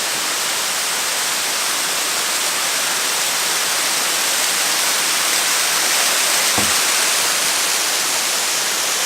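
Waterfall rushing close by: a steady, loud hiss of falling water, with a soft thump about two-thirds of the way through.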